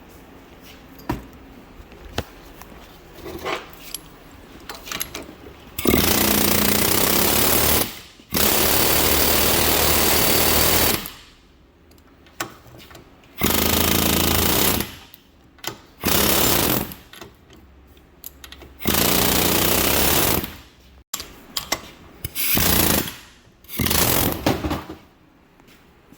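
Pneumatic air hammer in about seven loud bursts of one to two and a half seconds, starting about six seconds in, after a few lighter knocks. It is driving a rust-seized front wheel bearing hub out of a heated aluminum steering knuckle.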